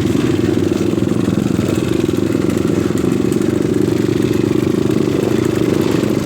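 Trail motorcycle engine running steadily with a rapid, even firing beat.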